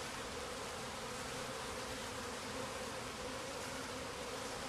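A swarm of honeybees buzzing, a steady drone of many bees.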